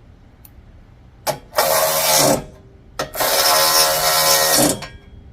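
Cordless impact-type driver running nuts down in two bursts: a short one about a second in and a longer one from about three seconds in. Each is a loud buzzing rattle.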